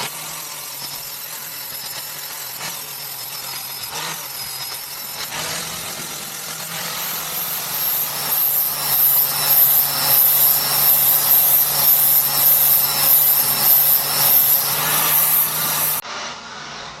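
Angle grinder with a Tiger flap disc grinding road rash off the face of a truck wheel rim, a steady whine with a rough abrasive grind. It grows louder about eight seconds in and cuts off suddenly about a second before the end.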